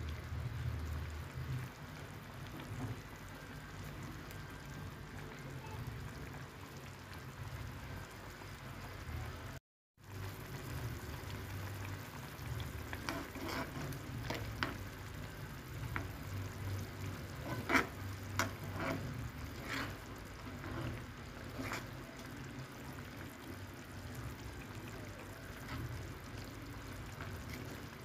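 Food cooking in a pan on the stove, a steady hiss, with a cooking utensil knocking and scraping against the pan several times in the middle stretch. The sound cuts out for a moment about a third of the way in.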